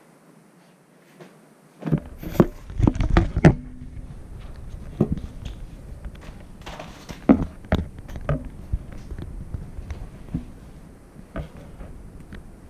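American Staffordshire terrier puppies scuffling in play: a run of knocks, thumps and scrabbling over a low rumble, loudest about two to four seconds in, then scattered knocks.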